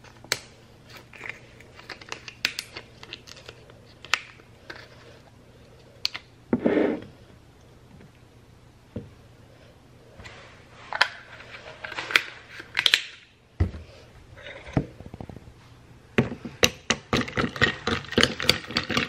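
Ice cubes clinking in a glass mason jar of iced coffee, with scattered taps and knocks as a creamer carton is tipped and poured. Near the end a quick run of clinks comes as the coffee is stirred with a straw.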